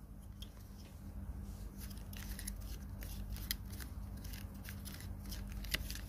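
Irregular small plastic clicks and light scraping as the mount on a small flexible tripod's head is worked loose and taken off by hand, over a steady low hum.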